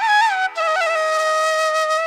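Background music: a flute playing a melody over a steady drone. The flute steps through a few quick notes, then holds one long note from about half a second in.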